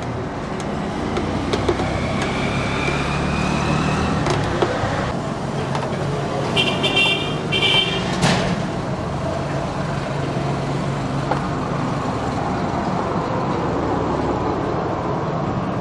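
Road traffic with vehicles running steadily, and a vehicle horn sounding briefly about seven seconds in.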